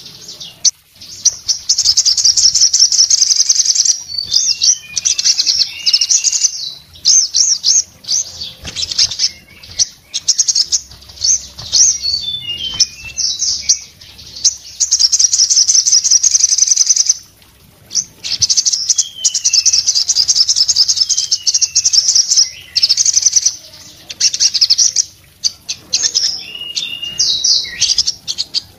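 Caged sogon sunbird in full song: long runs of very fast, high trilled notes broken by short pauses, with a few falling slurred notes in between.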